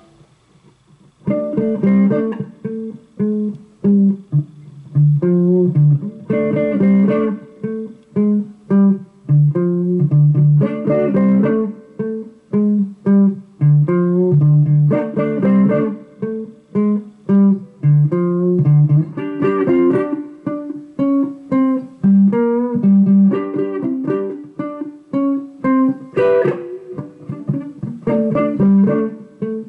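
Amplified Stratocaster-style electric guitar playing a fast riff of single plucked notes that changes pitch constantly, starting about a second in.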